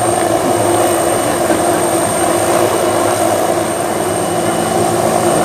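Small helicopter idling on the ground with its rotors turning: a steady engine noise with a thin, high, constant whine over it.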